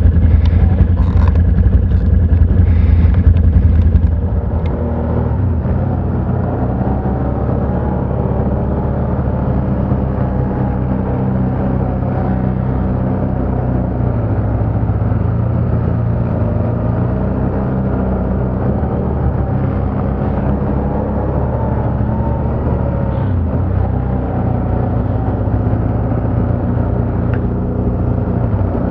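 ATV engine running on the ride, its pitch rising and falling with the throttle. It is louder for the first four seconds, then settles a little lower.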